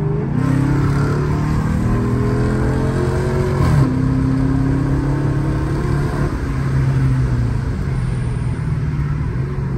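Dodge Charger R/T Daytona's 5.7-litre Hemi V8 pulling hard, heard from inside the cabin. Its pitch climbs steadily, drops sharply nearly four seconds in as the transmission shifts up, then climbs again more gently and settles into a steady cruise.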